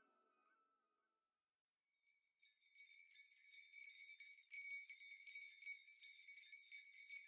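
Near silence, then from about two seconds in a faint high jingling of bells, the quiet opening of a background music track.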